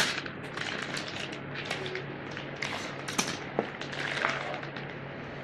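Plastic meat pouch crinkling and crackling in irregular bursts as hands grip, pull and squeeze it open to empty the meat, with a sharp crackle at the very start.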